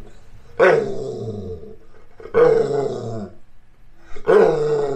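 A pit bull-type dog 'talking' at its owner in three drawn-out moaning calls, each about a second long and sliding down in pitch. It is pestering him for attention while he works at the computer.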